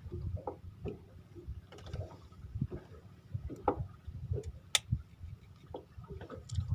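Irregular soft knocks and clicks, with one sharp click a little after the middle.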